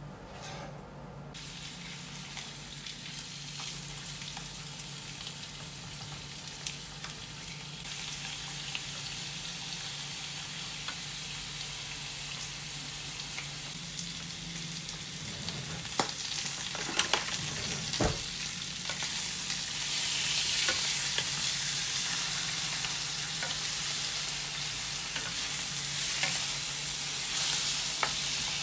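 Sliced pork belly sizzling as it fries in oil in a nonstick frying pan, the sizzle growing louder as the pan heats up. A few sharp knocks come a little past halfway through, and near the end the meat is stirred with a wooden spatula.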